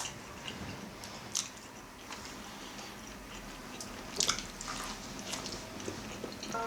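People chewing and eating steamed momo dumplings: soft, wet mouth and chewing sounds, with a few short sharp smacks, the clearest about a second and a half in and about four seconds in.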